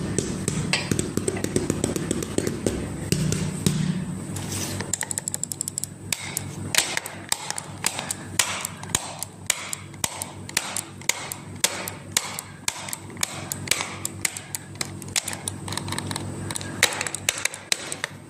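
A long series of sharp taps and clicks on a hard object, irregular, with a quick run of small rapid clicks about five seconds in, over a steady low hum.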